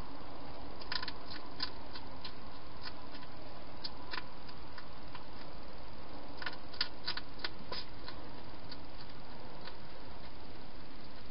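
Hedgehog chewing food at a bowl: scattered sharp crunches in small clusters, about a second in, around four seconds and most often between six and eight seconds in, over a steady hiss and faint hum.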